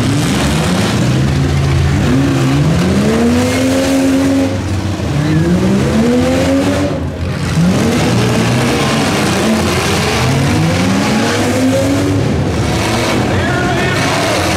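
Several demolition derby cars and small trucks running together, their engines repeatedly revving up and dropping back as they accelerate and back off.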